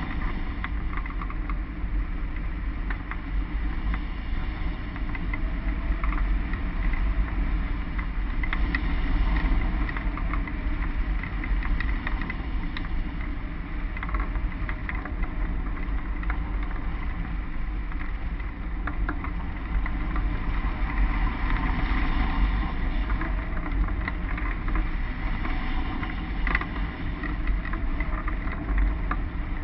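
Airflow rushing over a hang glider's wing-mounted camera microphone in flight: a steady rush with a heavy low buffeting rumble, dotted with faint scattered ticks and rattles.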